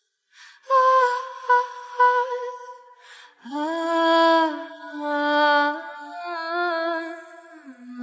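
A woman's voice sings slow, long-held notes of a lullaby-like melody without clear words, with no instruments.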